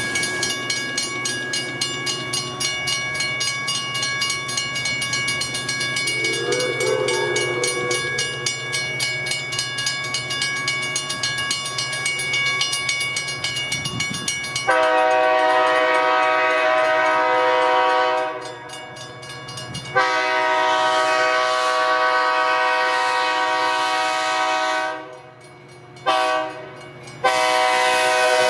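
A train sounds the grade-crossing signal on its horn or whistle, a chord of several notes: two long blasts, a short one and a long one, starting about halfway through. Before that comes a steady ringing tone.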